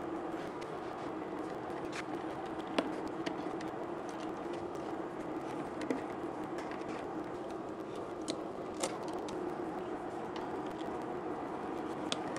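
Scattered light clicks and taps from a screwdriver and metal pipe fittings as a clamp on a steel gas supply pipe is tightened, over a steady low hum.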